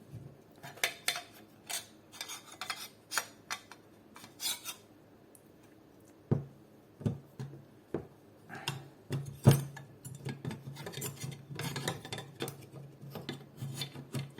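Parts of an airsoft AK clicking, knocking and scraping as the rifle is taken apart and its gearbox is worked free, with scattered sharp clicks, a brief lull about five seconds in and the loudest knock about nine seconds in.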